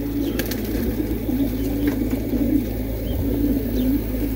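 Racing pigeons cooing, several wavering coos one after another, over a steady low rumble.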